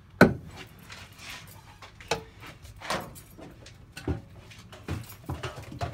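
A sharp hammer strike on a wooden 2x4 shoring post, followed by several lighter, irregularly spaced knocks and bumps.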